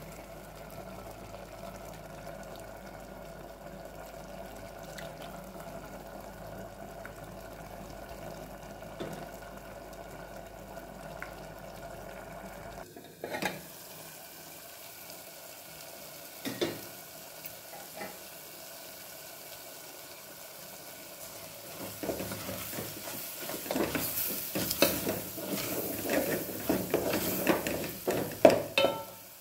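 Spatula stirring and scraping a thick, sizzling curry in an aluminium pot as it is boiled down dry. A few sharp knocks of metal come about midway, and the stirring turns loud and busy over the last several seconds.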